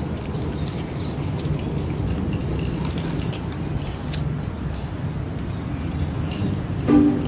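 Steady low background rumble with a run of short, high chirps in the first couple of seconds. A plucked-string tune comes in near the end.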